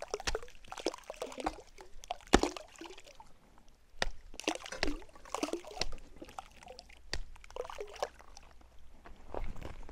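Irregular small splashes and slops at the water surface, with a few sharp knocks, as pond fish snap up termites knocked from a termite nest onto the water.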